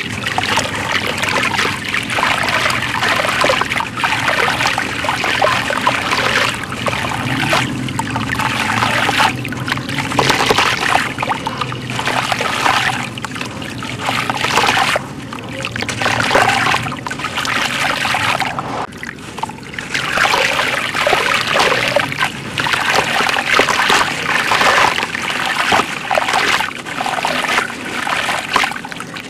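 Dry sand chunks crumbling in the hands, gritty grains pouring and splashing into a tub of muddy water in repeated swells of a few seconds.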